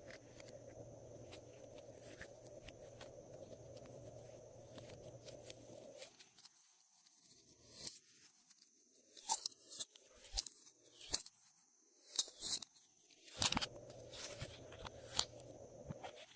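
Slime being handled: after a steady background hiss, a run of sharp crackles, clicks and crunches begins about six seconds in.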